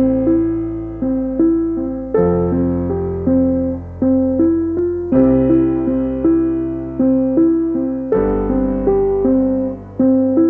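Piano music: a steady, repeating pattern of notes, about two a second, over a low bass note that changes about every three seconds.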